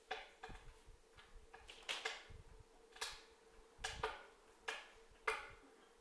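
Burning wood crackling and popping inside a closed wood stove: about ten sharp, irregular pops. A faint steady hum runs underneath.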